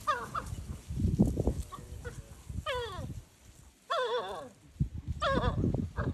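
African wild dogs giving high, wavering whining calls that glide downward, about four of them, as the pack circles a lioness.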